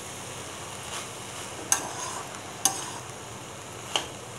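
A spoon stirring rice and grated beetroot in a metal pan over a light sizzle, with four sharp clicks as the spoon knocks against the pan.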